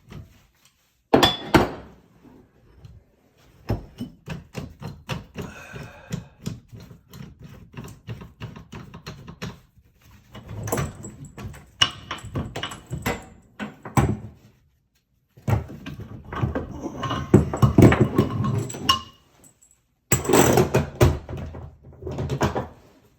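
RIDGID ratcheting soil pipe cutter being worked on a cast iron soil pipe: runs of rapid ratchet clicks and metallic knocks as the handle is pumped back and forth, in several bursts with short pauses between them.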